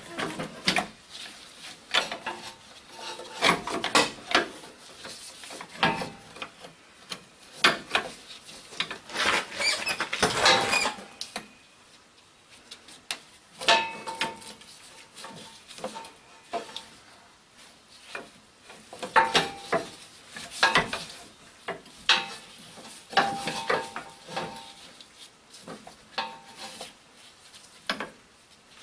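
Metal transmission cooler lines clinking, knocking and scraping against the transmission and frame as they are worked into place by hand. The clicks come irregularly, with a few brief metallic rings.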